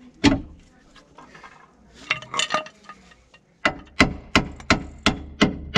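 Hammer blows on steel at the lower wishbone ball joint under a Ford Fiesta's front hub: one hard blow near the start, a few light clinks about two seconds in, then a steady run of about six hard blows, roughly three a second.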